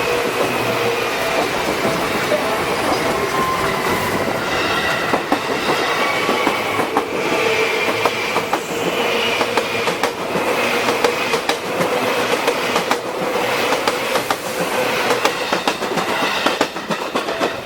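Seibu Shinjuku Line electric train passing close by over the crossing, its wheels clicking rapidly over rail joints and points, with a steady squeal from the wheels on the rails.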